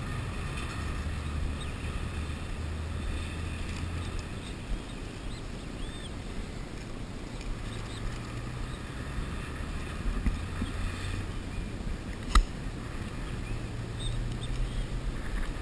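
Wind rumbling steadily on the microphone in a strong breeze, with one sharp click about three-quarters of the way through.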